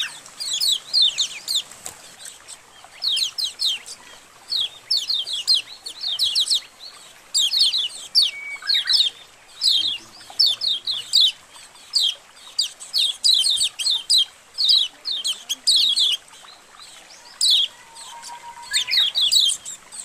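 A colony of kecial kuning white-eyes chirping. Many birds call over one another in quick clusters of high, downward-slurred notes, with short pauses between the clusters.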